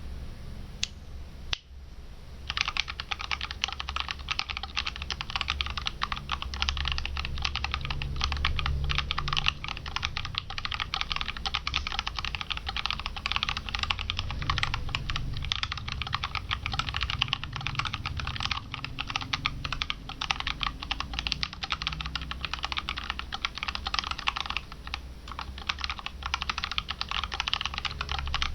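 Mechanical keyboard with Outemu Purple 62 g tactile switches, lubed with dielectric silicone grease, being typed on quickly and continuously. After a couple of single key clicks, steady fast typing starts about two and a half seconds in.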